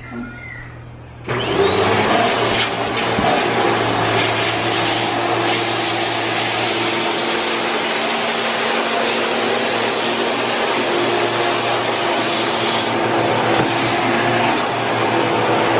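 Bissell PowerForce Helix Turbo upright vacuum cleaner switched on about a second in: its motor whine rises quickly and settles into a loud, steady run.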